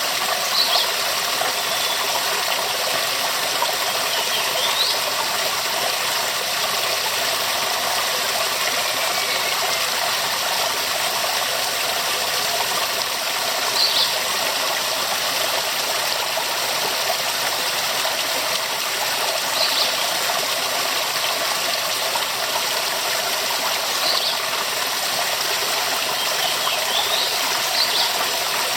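Waterfall rushing steadily, a dense even roar of falling water. Brief high-pitched sounds come through it every several seconds.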